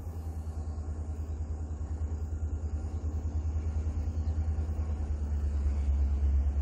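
Diesel locomotive hauling a Mugunghwa-ho passenger train approaching: a low engine rumble that grows steadily louder.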